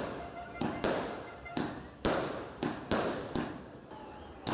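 Fireworks going off in a street: about eight sharp bangs at irregular intervals, each with an echoing tail.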